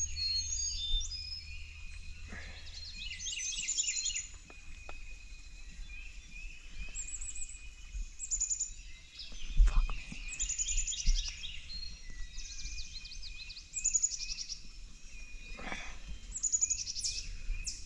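Songbirds singing in the woods at dawn, repeating short phrases of quick high notes, over a low rumble. A brief low thump about halfway through.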